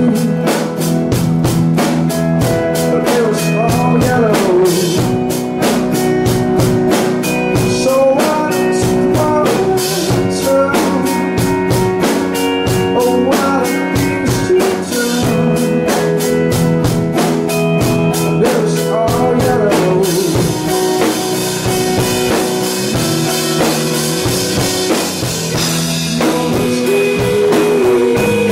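Live rock band playing: drum kit keeping a fast, steady beat under electric guitar. About twenty seconds in, the cymbals open into a sustained wash over the beat.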